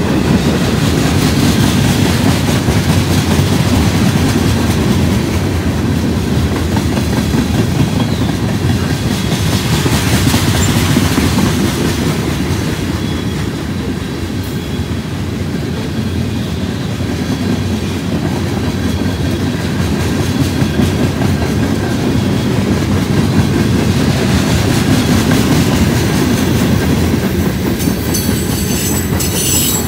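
Freight train cars, covered hoppers and flatcars, rolling past close by: a steady rumble of steel wheels on rail with clickety-clack over the rail joints. A brief high wheel squeal comes near the end.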